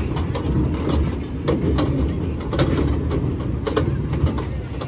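Kiddie ride of spinning bug-shaped cars running: a steady low rumble from the turning ride, with irregular clicks and clunks from its mechanism.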